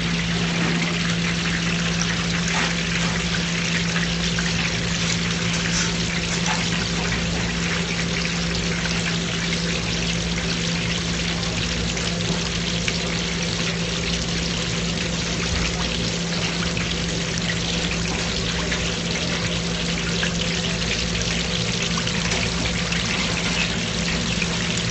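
Dumplings deep-frying in a commercial fryer: the oil bubbles with a steady crackling hiss and scattered small pops, over a constant low hum.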